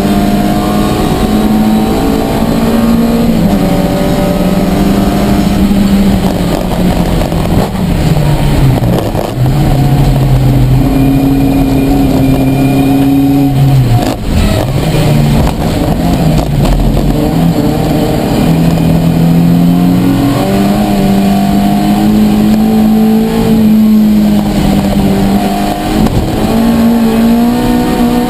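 Ford Fiesta race car's four-cylinder engine heard from inside the cabin at racing speed, its note climbing and falling with throttle and gear changes, with a sharp dip about halfway through.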